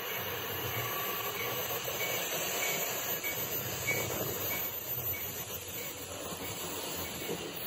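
LEGO toy train running along plastic track as it approaches: a steady whirring rumble with faint, evenly spaced clicks.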